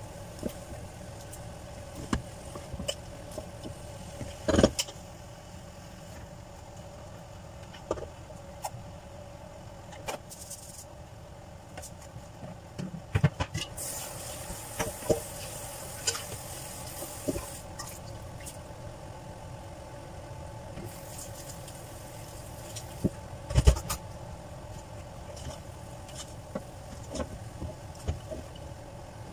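Wooden spatula stirring and tossing bean sprouts, cabbage and carrot in a metal pan: scattered scrapes and knocks against the pan, two louder knocks about 5 and 24 seconds in, over a steady low hum.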